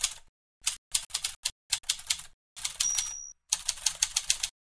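Typewriter sound effect: rapid runs of key clacks in bursts with short pauses, a brief high ring about three seconds in, stopping shortly before the end.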